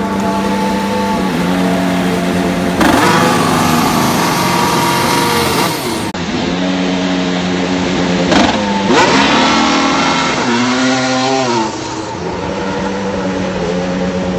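Formula 1 turbocharged V6 hybrid engines running in the pit lane: a steady drone at low revs, broken several times by revs rising and falling.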